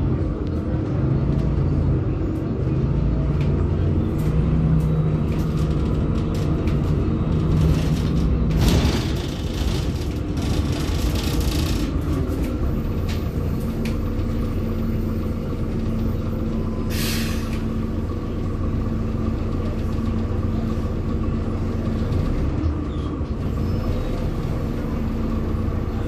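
Volvo B7RLE bus heard from inside the passenger cabin: the rear-mounted diesel engine and driveline running under way, the engine note shifting as the bus changes speed. Air from the air brake system hisses twice: a longer hiss about nine seconds in and a short, sharp hiss about seventeen seconds in.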